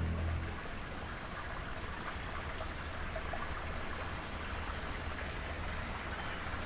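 Steady rush of flowing water, an even hiss with no distinct events, as the background music fades out at the start.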